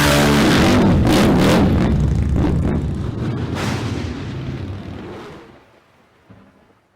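A motorcycle engine revving, with a few sharp cracks, its sound dying away over about five seconds to near silence.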